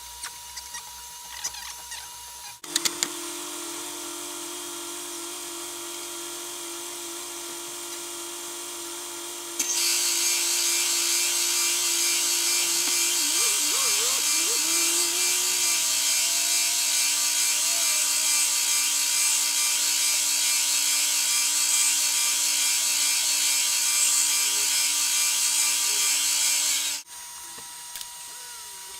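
Milling machine running, then, about ten seconds in, much louder with a high, hissing cutting noise as the cutter bites into the wood. The noise holds steady and then cuts off abruptly near the end.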